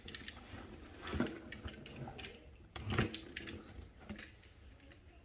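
A small cardboard box being handled and opened, with a few soft knocks and scrapes, the strongest about one and three seconds in.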